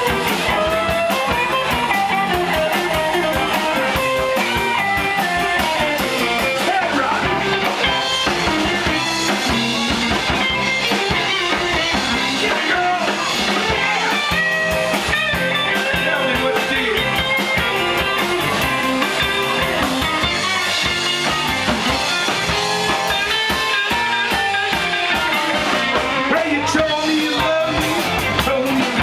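Rock music with guitar and drum kit.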